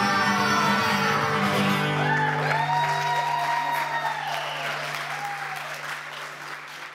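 Live acoustic guitar chord ringing out under audience applause and shouting voices, the whole fading out steadily.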